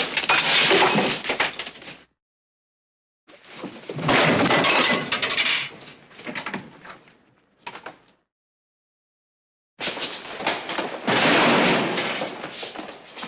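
Three separate sound-effect crashes of things breaking and smashing. Each starts suddenly and clatters on for two to four seconds, with dead silence between them. The first is at the start, the second about three seconds in, and the third near ten seconds.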